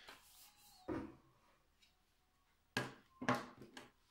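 Handling knocks from a power sander's plastic handle and metal suction tube on a wooden table: one sharp knock about a second in, then three more close together near the end.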